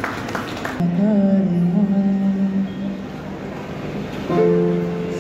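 A man singing slow, long-held notes with grand piano accompaniment; one held phrase runs from about a second in to about three seconds, and another note begins about four seconds in.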